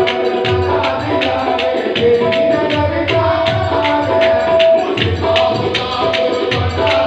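Sufi devotional music in the qawwali style: a harmonium holds and shifts sustained melody notes over a hand-drum rhythm with sharp beats about four a second.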